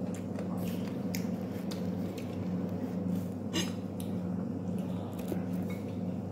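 Quiet eating sounds: a few small clicks and clinks from a glass bowl of rice being eaten by hand, one sharper click about three and a half seconds in, over a steady low hum.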